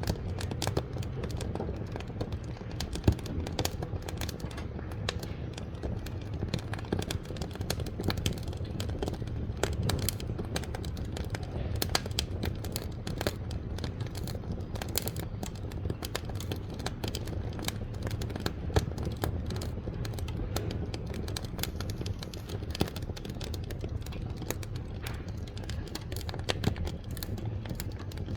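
Wood fire burning in a wood-fired cookstove: a steady low rumble of the flames with frequent irregular sharp crackles and pops from the burning wood.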